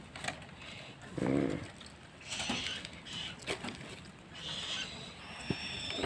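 Scattered light clicks and taps on a metal bird cage as a hand works at the bars and the owl inside moves, with two short hisses.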